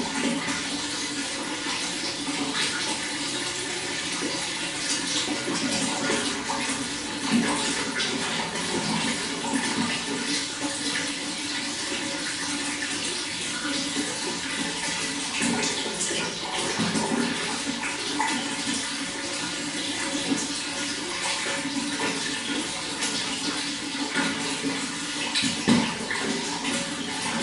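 Running water, a steady rush and splash of flowing water with small gurgles throughout.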